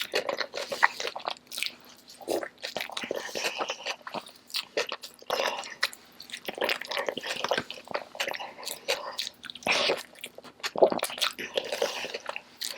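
Close-miked ASMR eating: a person biting into and chewing a big burrito, with many short wet smacking and clicking mouth sounds.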